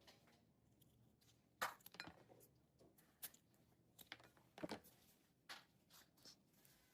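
Scattered faint clicks and light knocks of small objects being handled, the sharpest about one and a half seconds in and others following irregularly every second or so.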